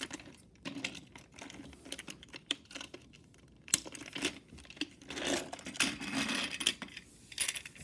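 Plastic toy train, a Plarail engine and tender, handled on plastic track: a run of small clicks and knocks, with a stretch of rubbing and scraping about five seconds in.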